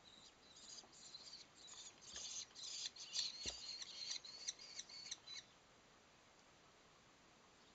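Kestrel chicks giving food-begging calls as a parent arrives at the nest: a rapid series of high, shrill calls that build up and grow louder, then stop about five seconds in. A single thump comes about halfway through.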